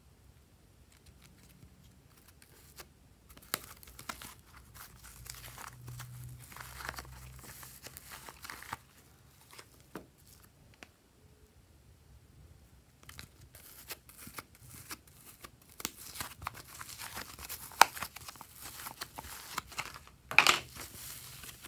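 Thick glitter slime being pulled out of a plastic container and then squeezed and stretched by hand: sticky crackling and tearing in bursts, with a quiet pause in the middle and one louder pop near the end.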